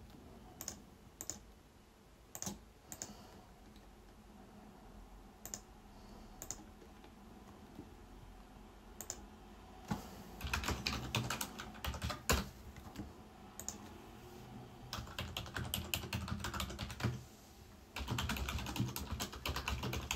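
Single mouse clicks a second or more apart, then from about halfway through, rapid typing on a computer keyboard in runs of several seconds.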